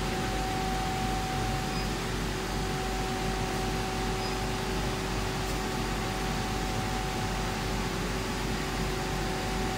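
Laser cutting machine's fans and blowers running: a steady rushing hiss with a constant two-tone hum.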